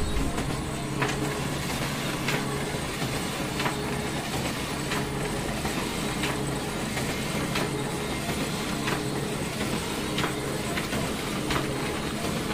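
Canon imageRUNNER 2545i laser copier printing, its motors humming steadily with a sharp click about every 1.3 seconds as sheets feed out into the output tray. This is a test print run after a drum unit replacement.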